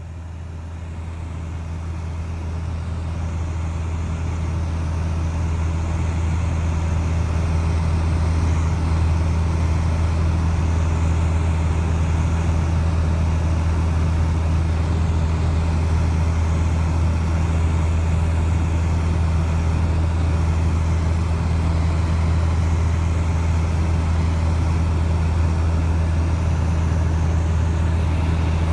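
Light propeller airplane's engine and propeller droning steadily, heard inside the cabin. The drone grows louder over the first several seconds, then holds level.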